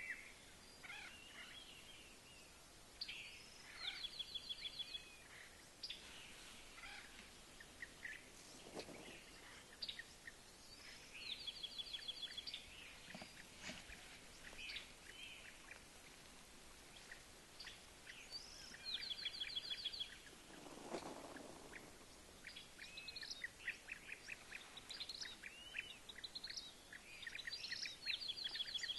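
Songbirds chirping and singing, with a fast, high trill about a second long repeating every several seconds among many short chirps. A brief lower call is heard once, about three-quarters of the way through.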